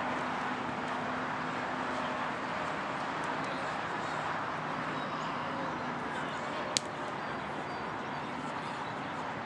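Outdoor soccer-field ambience: steady background noise with faint distant voices of players, and one sharp thud of a soccer ball being kicked, about two-thirds of the way in.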